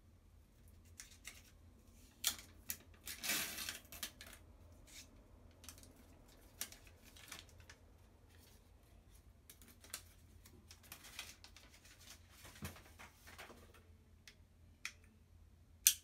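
Crinkles and clicks of a small plastic power adapter being handled while its clear protective plastic film is peeled off. There is a longer crinkling rustle about three seconds in and a sharp click at the very end.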